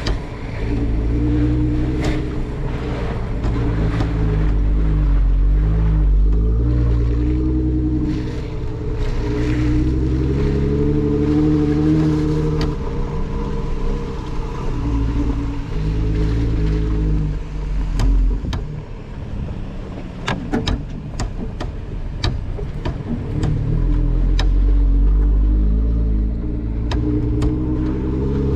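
Jeep Wrangler engine running while it drives slowly over a muddy, rutted trail, its pitch rising and falling with the throttle, with scattered sharp clicks and knocks throughout.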